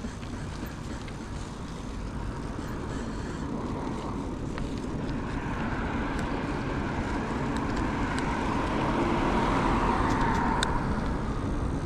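Road vehicle noise, a steady rushing sound that grows slowly louder, peaks about ten seconds in, then eases slightly.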